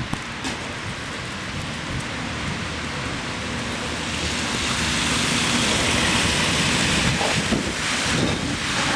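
Tyres hissing through slush on a snowy road, swelling to a peak about halfway through as a vehicle passes, with a low engine rumble underneath.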